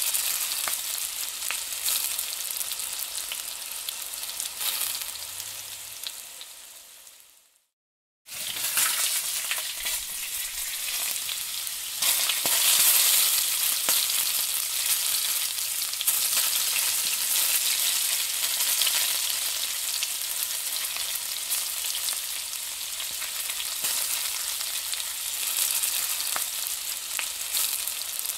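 Gram-flour-coated green chilli rings sizzling as they fry in a nonstick pan, stirred with a wooden spatula that scrapes the pan surface. The sizzle fades out about seven seconds in, cuts to silence for under a second, then comes back.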